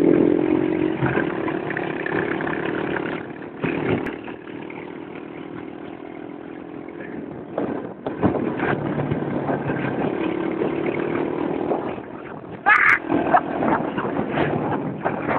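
Quad bike (ATV) engines running along a dirt track, the engine note dropping off in the middle and picking up again as the throttle changes. A brief loud burst comes about three-quarters of the way through.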